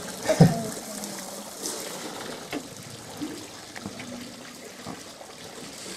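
Water trickling and splashing as an African elephant lets it run from its trunk back into the waterhole, with a single brief louder sound about half a second in.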